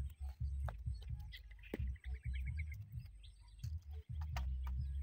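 Low buffeting rumble on the microphone, with a bird's rapid trill of chirps about a second and a half in and a few light clicks.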